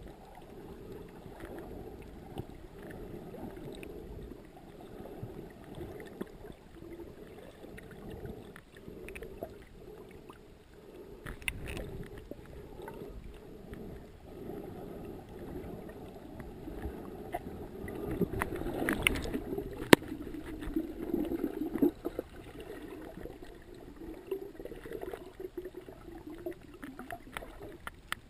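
Water heard through a camera held underwater: a steady muffled rushing, with scattered clicks and knocks, louder for a few seconds about two-thirds of the way through.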